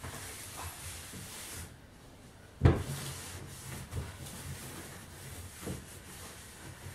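Cloth wiping over the wooden side of a cedar chest, with one sharp knock about two and a half seconds in, the loudest sound, and a few lighter bumps.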